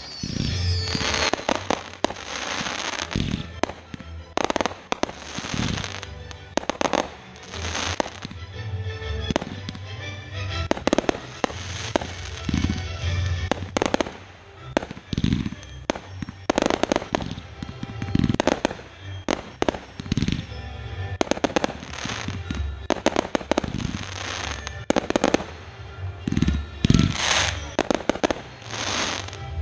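Fireworks show: many bursts and bangs in quick, irregular succession throughout, some followed by crackling tails.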